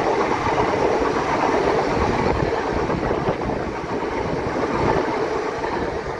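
Southern Class 377 Electrostar electric multiple unit passing alongside the platform: a steady rush and rumble of wheels on the rails, easing slightly near the end as the last carriages go by.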